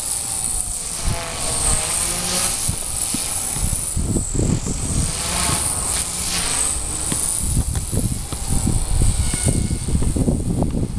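4F200 electric RC helicopter flying flips, its motor and rotor whine gliding up and down in pitch, with high wind buffeting the microphone in heavy rumbling gusts through the second half.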